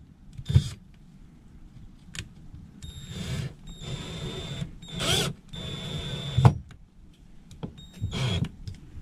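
Cordless drill/driver run in several short bursts, a fraction of a second to about a second each, with a steady high motor whine, as it works a screw hole in a plug connector mount. A couple of dull knocks come with it, about half a second in and again after the longest burst.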